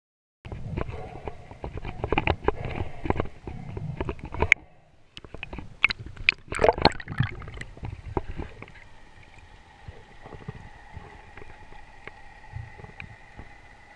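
Underwater noise through an action camera's waterproof housing as a spearfisher swims: a low rumble of moving water with a dense run of clicks and knocks, starting about half a second in. After about eight seconds it settles to a quieter hiss with a faint steady whine.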